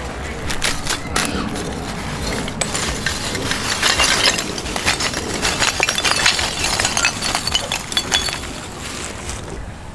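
Chunks of lump charcoal poured from a plastic bag into a clay pot oven, clattering and clinking against each other and the pot's rim in a dense, brittle rattle, busiest in the middle.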